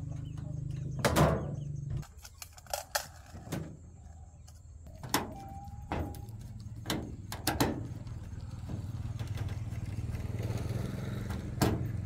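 Scattered metal clicks and knocks of a screwdriver working the rusted screws of a washing machine's sheet-metal side panel, the loudest knock about a second in. A steady low hum runs beneath, dropping out about two seconds in and coming back from about six seconds.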